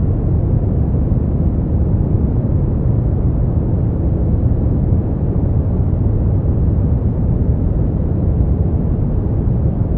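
Steady brown noise: a deep, even rumbling hiss with most of its energy in the bass, falling away toward the treble, unchanging throughout.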